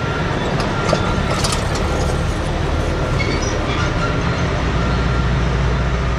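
BelAZ 75710 mining dump truck running as it drives slowly forward, a steady, loud mechanical noise from its two MTU 16-cylinder diesel engines and electric drive. The low end swells a little after about five seconds.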